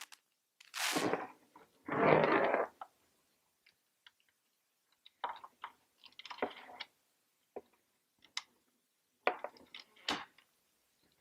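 Small handling sounds of a tamper-evident wire seal being threaded through the metal eyelets of a container valve and tank cap: two short rustling scrapes at the start, then scattered light clicks and taps.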